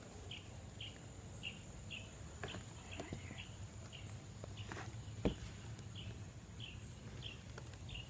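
Faint, high chirp from a small animal repeating about twice a second over quiet outdoor background, with a few soft knocks.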